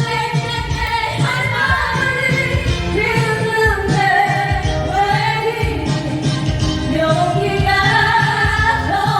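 Women's voices singing a Korean popular song live over musical accompaniment, with the sung melody continuing throughout.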